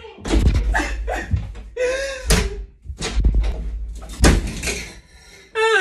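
An interior door banged shut hard again and again: several loud slams over about four seconds, each with a low rumble and rattle.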